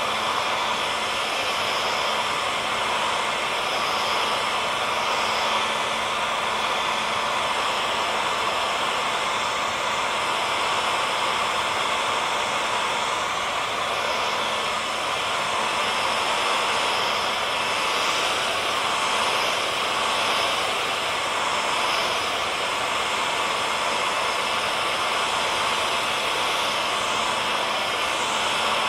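Hair dryer running steadily: an even rushing blow of air with a faint steady motor hum, without change.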